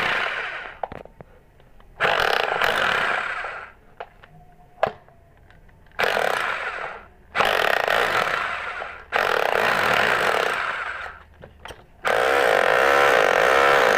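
Power demolition hammer with a pointed chisel bit breaking up a tiled concrete floor. It runs in five bursts of one to two seconds, with short pauses between them.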